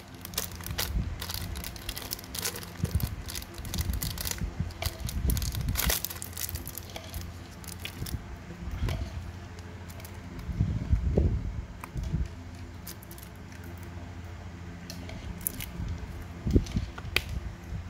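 Handling noise from Zippo lighters and their packaging: scattered small clicks, light knocks and rustling.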